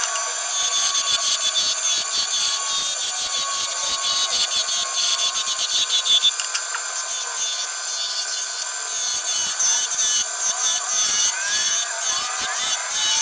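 A block of oak being shaped into a knob by abrasion, a steady rubbing and rasping against the wood that pulses in loudness with repeated strokes, a few per second.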